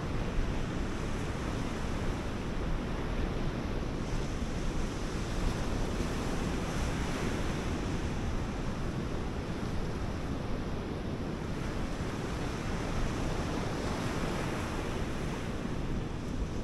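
Sea surf breaking and washing on a sandy shore, a steady rush that swells and eases, with wind buffeting the microphone underneath.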